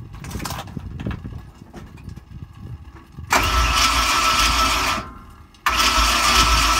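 Cold big-block V8 in a Ford F100, heard from under the truck: a low, uneven idle, then the engine is suddenly revved hard, a loud blast of exhaust with a steady high whine. It drops back briefly and is revved again near the end.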